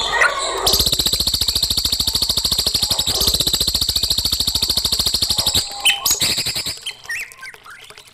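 A songbird singing a long, very fast rattling trill for about five seconds, then a few short separate chirps.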